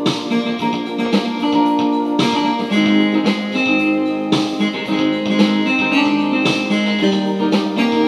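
Music played on an electronic keyboard: chords and a melody of held notes, with plucked-sounding attacks.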